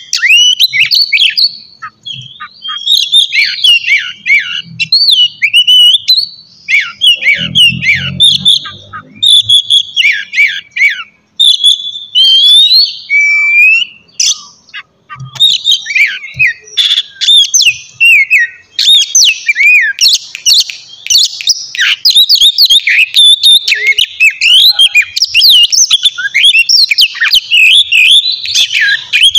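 Oriental magpie-robin (kacer) singing a loud, fast, varied song of whistled and scratchy notes that jump and slide in pitch, broken by a couple of short pauses partway through.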